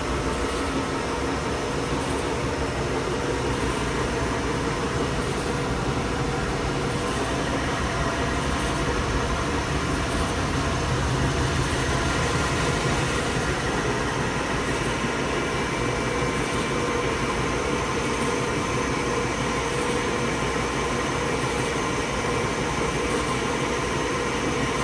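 GRINDINGMASTER 42-series grinding and deburring machine running steadily, grinding metal parts to clean their edges.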